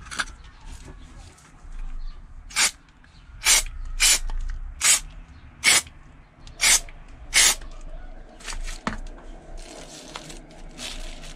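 Aerosol can of Body 950 anti-gravel coating spraying in about seven short hissing bursts, roughly a second apart, as springs are given a coat.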